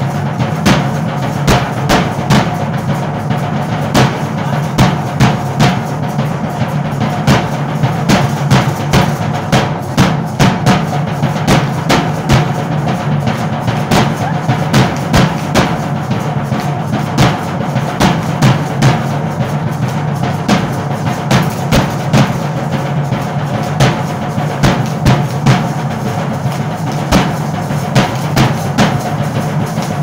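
Drum beating a steady, repeated dance rhythm for a matachines danza, with a strong accented beat about once a second and many quicker strokes between.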